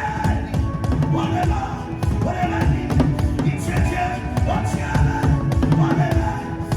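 Drum-led music: fast, steady drum beats over sustained pitched notes.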